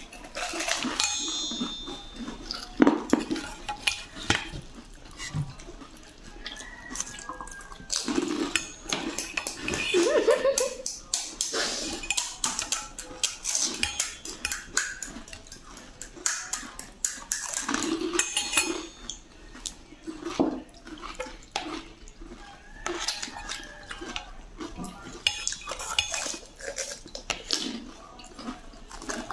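Steel spoons clinking and scraping against steel plates and a steel bowl in many irregular taps as puris are filled, mixed with the crunch and chewing of puri shells being eaten quickly.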